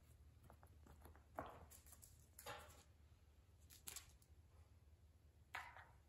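Faint scuffs and skids of a cat's paws and a toy mouse on a tile floor as the cat bats and chases it, four of them spread over a few seconds.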